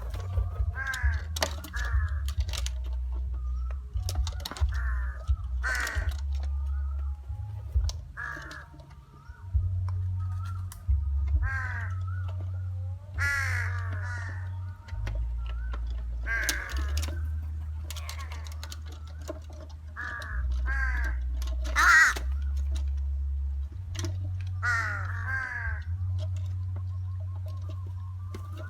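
Crows cawing repeatedly, in series of short harsh calls throughout, over a steady low rumble.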